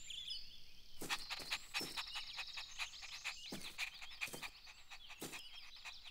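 Faint garden ambience: high bird twittering over a scatter of short, irregular clicks.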